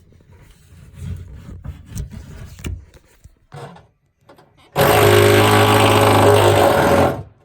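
Scraping and rustling with a few sharp knocks, then a power tool runs at a steady speed for about two and a half seconds and stops.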